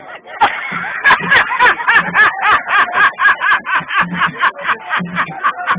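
Upbeat music with a fast percussion beat of about four sharp hits a second, low drum thumps, and a high, wavering melody line over it.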